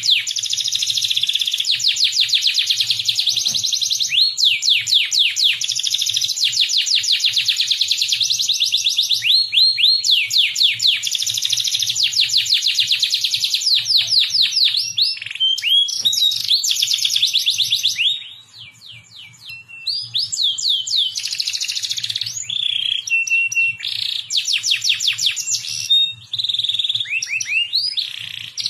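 Domestic canary singing: long runs of rapid rolling trills and repeated chirps, with a short lull about two-thirds of the way through before it resumes.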